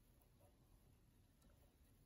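Near silence: room tone, with a couple of very faint ticks.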